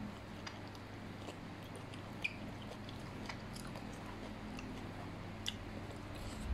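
Close-up chewing and mouth sounds of someone eating, with scattered small clicks of chopsticks against the plates; two sharper clicks come about two and five and a half seconds in. A faint steady low hum runs underneath.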